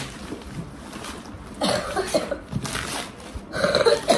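A woman coughing twice from a cold and sore throat, with wrapping paper rustling and tearing as a box is unwrapped.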